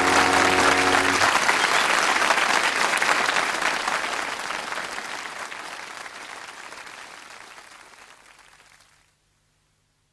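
Audience applauding, under the last held chord of the theme music, which ends about a second in; the applause then fades away gradually and stops shortly before the end.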